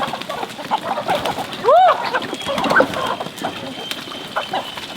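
Farm poultry calling: many short calls, with one louder call rising and falling in pitch about two seconds in.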